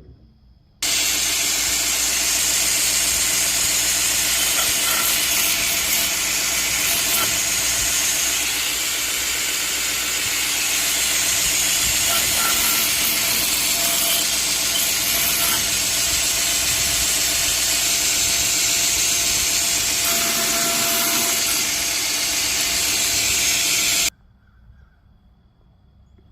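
Belt grinder with a magnetic surface-grinding attachment running steadily while grinding wooden knife-handle blocks flat and square. It is a loud, even hiss over a motor hum, starting abruptly about a second in and cutting off abruptly near the end.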